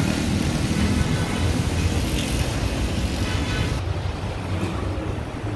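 Steady street traffic noise, a low vehicle rumble under a wide hiss. About four seconds in, the hiss cuts off abruptly, leaving a quieter, duller indoor background.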